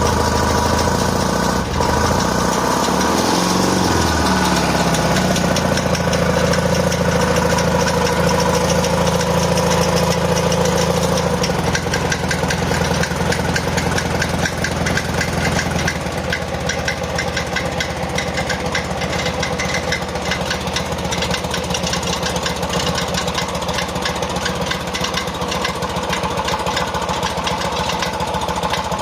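Motorcycle engine just after starting: the revs drop over the first few seconds and settle into a steady idle. Under the idle runs a rapid, rhythmic mechanical knocking, an abnormal engine noise that may point to a fairly serious fault.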